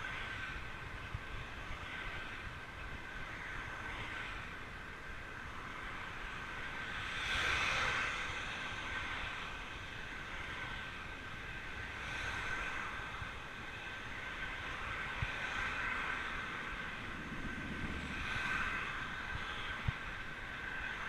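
Fat bike rolling on asphalt: a steady rush of tyre and wind noise with a constant high hum, swelling several times as cars pass, loudest about seven to eight seconds in.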